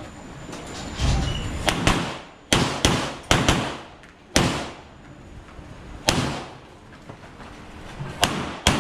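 Handgun shots fired one at a time at uneven intervals, about ten sharp reports with a short echo after each, as in a shooter's run through an IPSC stage.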